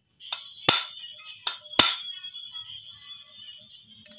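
Four hammer blows on a long steel bolt used as a drift, driving a new steering head bearing race into a scooter's steering head tube. The second and fourth blows are the heaviest, and each leaves a high metallic ring that hangs on between strikes.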